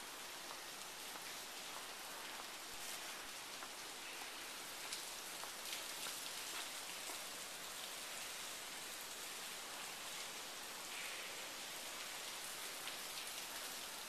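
Hard rain falling steadily, a faint, even hiss with a few scattered small ticks.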